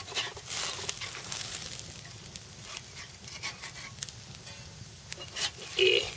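Chicken breasts sizzling on a wire grill grate over a wood fire, with a metal spatula scraping and clicking against the grate as the meat is moved and turned. A louder scrape comes near the end.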